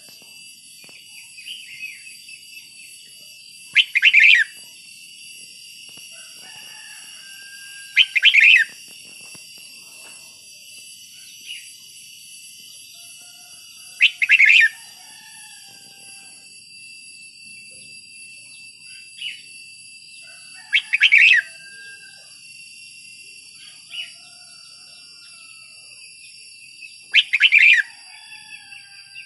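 Red-whiskered bulbul singing: five short, loud song phrases a few seconds apart, with softer chirps between them.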